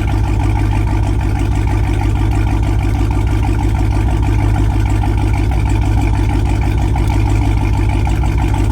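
Chrysler 300's engine idling steadily, with an even, unchanging pulse.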